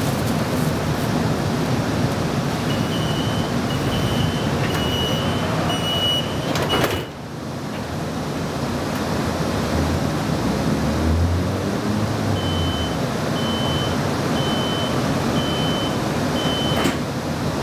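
Streetcar standing at a stop with its doors open: a steady hum of the car and street traffic, broken by two runs of short, high beeps about once a second, five or so in each run. The beeps are the door warning signal.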